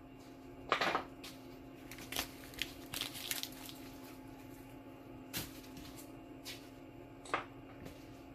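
A handful of brief rustles and crinkles of paper backing and acrylic offcuts being handled, over a faint steady hum.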